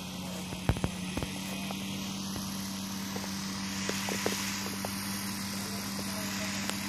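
A propeller aircraft engine drones steadily at one constant pitch, with a few sharp knocks about a second in.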